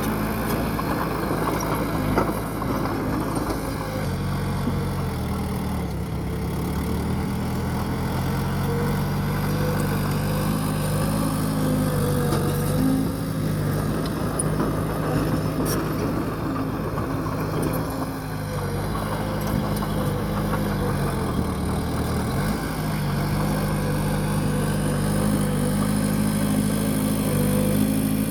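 Bulldozer's diesel engine working while pushing soil. Its pitch sags for a few seconds about five seconds in and again around twenty seconds, then picks back up.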